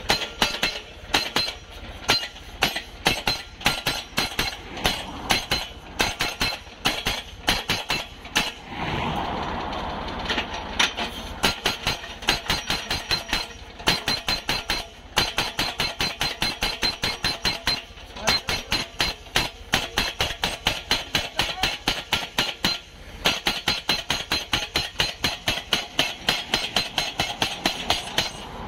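Crash barrier post-driving machine's hammer striking a steel guardrail post over and over, sharp metallic blows about three a second. The blows stop for about two seconds around eight seconds in, leaving a steady running sound, then start again.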